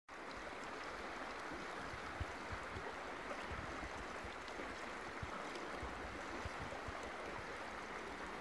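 Steady rushing of a small, fast-flowing river current, with a few faint low thumps scattered through it.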